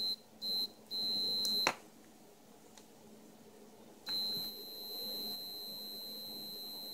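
Continuity buzzer of a Kyoritsu KEW 2200 clamp meter beeping as the test leads make and break contact: two short beeps and a longer one, ending with a click. About four seconds in, the leads hold contact and the buzzer gives a steady, unbroken beep.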